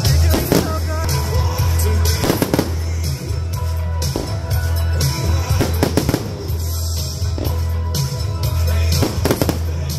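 Aerial fireworks going off over loud music with a strong steady bass: sharp cracks and crackling bursts come in clusters about every two to four seconds, four times.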